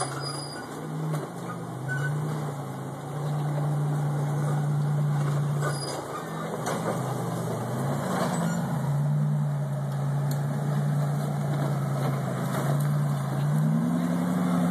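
Rock-crawler buggy's engine revving hard under full throttle as it climbs over rock ledges, its pitch dipping and recovering several times as the load changes, then rising near the end.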